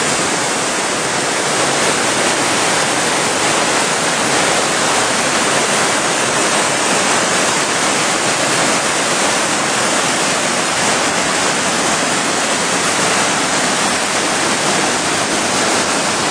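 Adams Canyon waterfall pouring at close range in unusually high flow: a loud, steady, unbroken rush of falling water.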